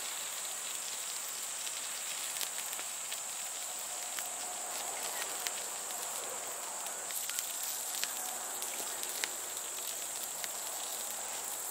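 Split firewood burning hard in a fire pit: a steady crackle with frequent, irregular sharp pops and snaps.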